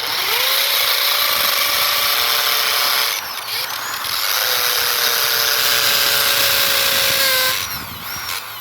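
Bosch corded impact drill in hammer mode drilling into concrete with an 8 mm masonry bit: the motor whine spins up, sags briefly about three seconds in, runs again, then winds down near the end.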